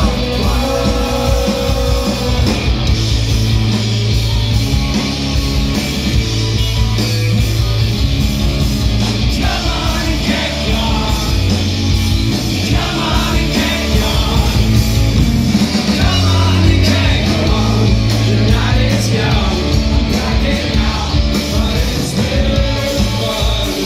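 Rock band playing live and loud through the venue PA: electric guitar, electric bass and drum kit, with a male voice singing, heard from within the crowd.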